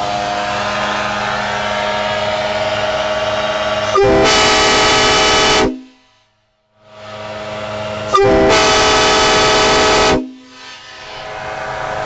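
Nathan AirChime K5LLA five-chime train horn sounding its chord. It swells up steadily, then goes to full volume in a blast about four seconds in. It cuts off briefly, then builds again into a second full blast and ends with a short toot near the end.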